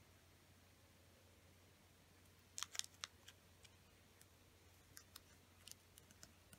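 A small square of origami paper being folded and pressed flat by hand: a quick cluster of crisp paper crackles about two and a half seconds in, then a few lighter ticks, over a faint low hum.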